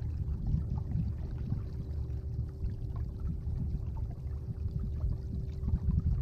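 Water sloshing and gurgling against the hull of a Hobie PA14 kayak moving through calm water, with an uneven low rumble of wind buffeting the microphone and a faint steady hum underneath.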